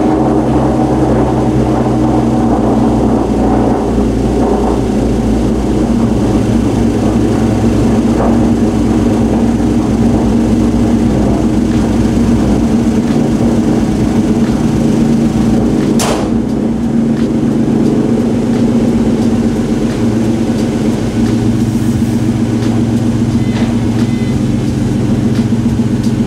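Hyundai Genesis Coupe's 3.8-litre V6 idling steadily through a muffler-delete exhaust, just after an intake manifold riser has been fitted. A single sharp knock about sixteen seconds in as the hood is shut.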